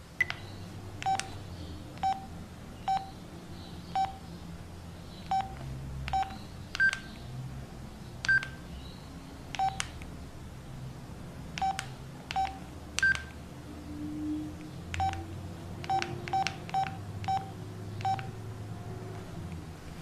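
Alcatel OT-S121 mobile phone keypad beeps as its menu is scrolled: about twenty short single beeps at uneven intervals, mostly at one pitch with a few higher ones mixed in.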